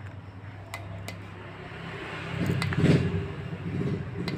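Flush cutters snipping the long leads of freshly soldered power transistors on an amplifier board: a few sharp clicks in the first second or so. From about halfway a motor vehicle's engine rumble rises and becomes the loudest sound.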